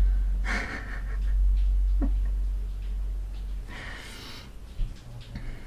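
A woman's audible breaths, two short puffs of breath close to the microphone with a brief small vocal sound between them, over a low rumble that fades out about three and a half seconds in.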